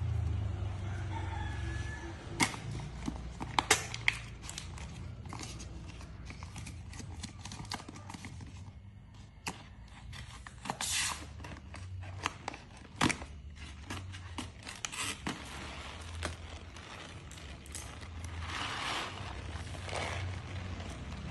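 Paper bag of soybean cat litter being torn open by hand: tearing and crinkling paper with many sharp clicks, then a longer rustle near the end as the bag is pulled open.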